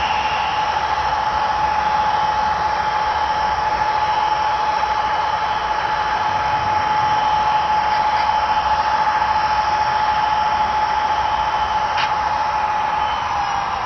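HO scale model train running along the track: a steady hiss with a constant high whine that dips slightly near the end, and a single click about twelve seconds in.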